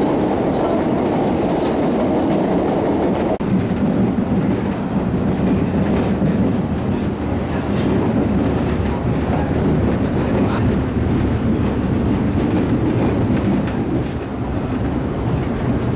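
Interior ride noise of a moving BMT D-type Triplex subway car: steady rumble of wheels and running gear on the rails, with faint clicks. The sound breaks off and resumes about three and a half seconds in.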